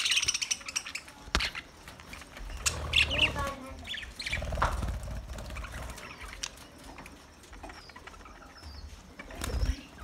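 A flock of budgerigars chirping and chattering in an aviary, with flurries of wing flapping as birds flutter about, the loudest flurry near the end.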